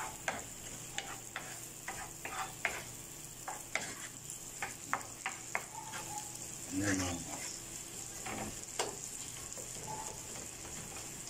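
Chopped onion and carrot sizzling in margarine in a frying pan, with a wooden spoon scraping and knocking against the pan as it is stirred.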